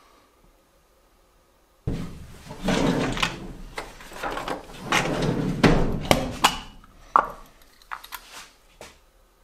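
Knocking and clattering begin about two seconds in and keep up densely for about five seconds, then thin out into scattered clicks near the end.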